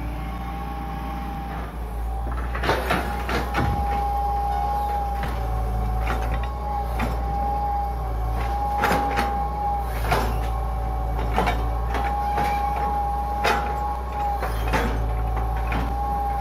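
Hitachi EX120 long-reach excavator's diesel engine running under load with a steady hydraulic whine that dips and recovers as the arm and bucket work. Sharp knocks come every second or two as the bucket works the ditch bank.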